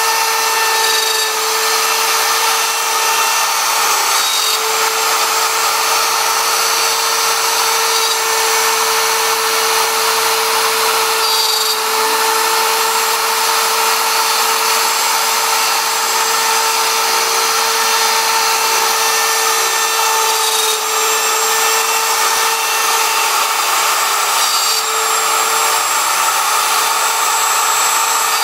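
CNC router spindle running and cutting a wooden wheel: a steady whine over the even hiss of the bit in the wood.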